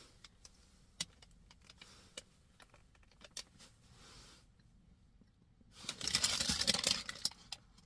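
A person biting into and chewing a soft pretzel held in a paper bag, with scattered small clicks of mouth and paper. About six seconds in comes a loud crinkling of the paper bag lasting a second or so, as the tough end of the pretzel is bitten and pulled off.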